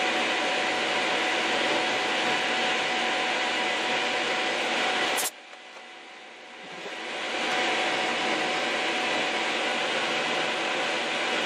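Milling machine running with a small end mill cutting metal, a steady whine with a few steady tones through it. About five seconds in it cuts off with a click and then rises back to the same steady sound over a second or two.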